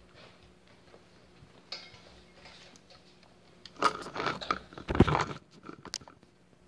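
A phone recording is handled close to its microphone: fingers rub and knock on it in irregular crackling bursts that begin about four seconds in, after a few seconds of quiet with a faint steady hum.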